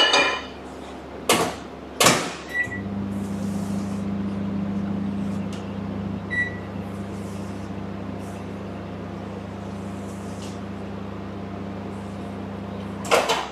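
Microwave oven: a few sharp knocks, a short beep as it starts, then its steady hum for about ten seconds with one more short beep partway through. The hum cuts off near the end, followed by a loud knock.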